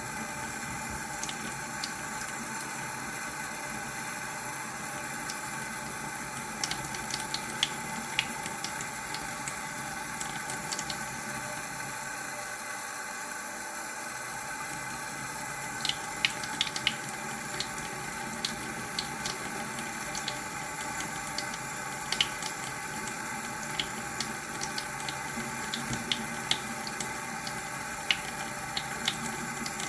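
Water running steadily from a tap into a sink, with scattered small sharp clicks over it, more of them in the second half.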